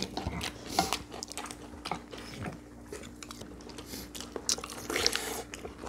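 Chewing and eating sounds of barley bibimbap with young-radish kimchi: scattered small crunches and clicks, over a faint steady hum.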